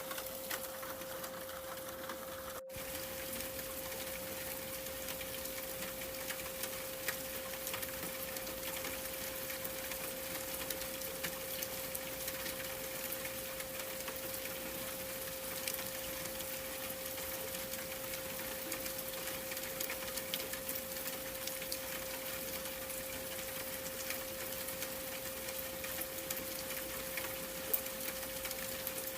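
A steady 528 Hz pure tone held without change over a constant rain-like hiss with fine scattered ticks. The whole mix drops out for an instant about three seconds in.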